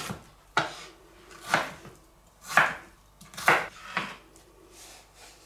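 Chef's knife slicing a small cucumber on a wooden cutting board: about five separate cuts, roughly one a second, each ending in a sharp knock of the blade on the board.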